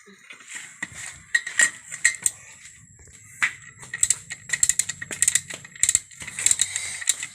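Hand tools clinking and clicking against the metal parts of an electric water pump being dismantled, with the shaft clamped in a vice grip while the impeller is worked loose. Irregular sharp metallic clicks, coming thicker in the second half.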